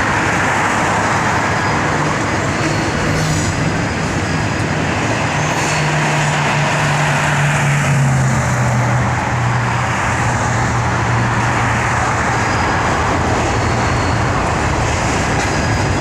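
Norfolk Southern freight train rolling past: a steady rumble of wheels on rail under a low diesel drone that drops slightly in pitch about halfway through.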